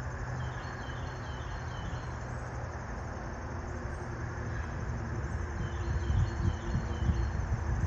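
Outdoor ambience: a steady low rumble with two short runs of small, high, falling chirps, about half a second in and again about four and a half seconds in. Low gusty buffeting on the microphone grows louder near the end.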